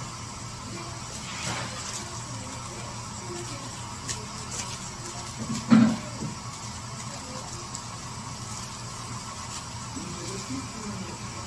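Steady low machine hum with scattered light knocks and rustles, and one louder dull thump about six seconds in.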